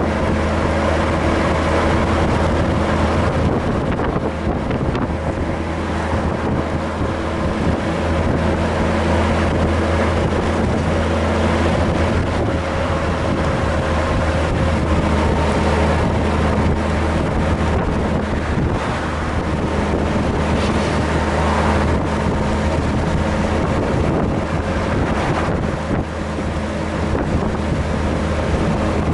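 Honda GL1500 Gold Wing's flat-six engine running steadily while the motorcycle is ridden, with wind noise on the microphone.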